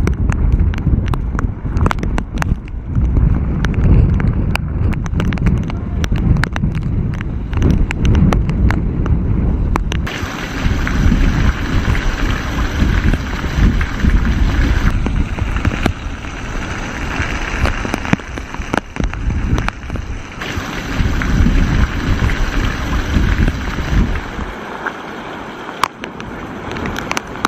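Storm wind buffeting the microphone with a deep rumble, with rain and many sharp ticks of raindrops. About ten seconds in, the rumble eases and a steadier rushing hiss of rain takes over.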